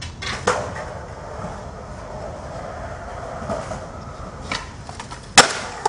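Skateboard wheels rolling over pavement: a steady low rumble with a few light clacks, then a single loud sharp crack near the end.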